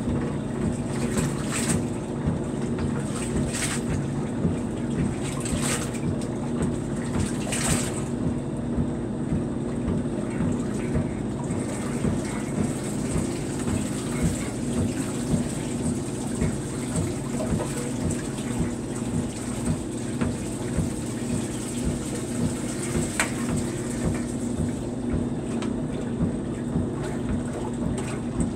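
Maytag wringer washer running: a steady motor hum with its agitator sloshing in the tub, pulsing about once a second, and a few sharp clicks in the first several seconds.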